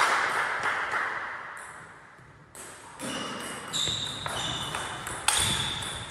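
Table tennis rally: the ball clicks sharply off bats and the table, with short high pings, from about three seconds in. Before that, a loud hiss fades away over the first two seconds.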